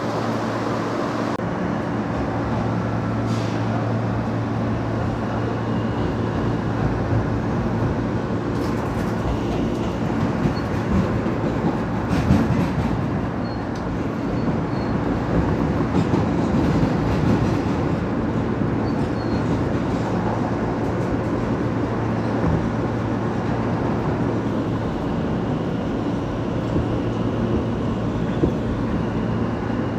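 Inside an R160 subway car running along the track: a steady rumble of steel wheels on rail under a constant drone from the car's running gear, with a few faint clicks.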